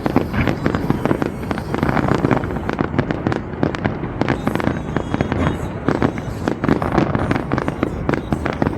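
Fireworks display in full barrage: a dense, unbroken run of sharp bangs, many a second.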